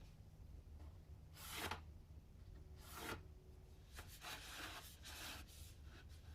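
A pen drawing lines along a rocket booster tube against an aluminium angle: a few short, faint strokes, with a cluster of them in the second half, over a steady low hum.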